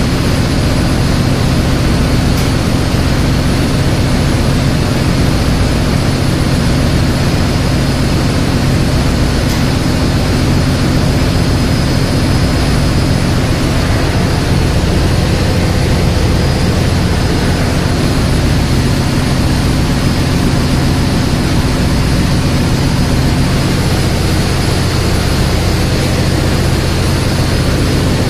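Loud, steady drone of running diesel machinery in a cargo ship's engine room: several low steady hum tones under a constant noise that does not change.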